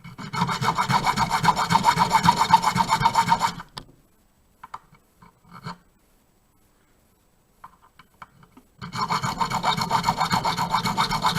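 A small hand file rasping quickly back and forth, about five or six strokes a second, cutting the notches into a key blank. It runs in two spells, with a pause of a few seconds and a few light taps between them.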